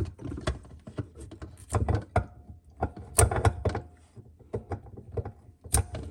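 Irregular knocks, clicks and clunks of parts and tools being handled while a dishwasher's water inlet valve is clamped into place.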